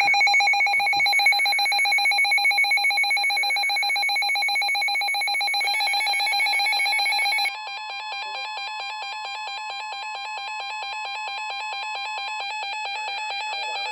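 Emergency Alert System attention signal: a continuous, harsh two-tone alarm with many overtones. About halfway through it drops in level and its pattern changes.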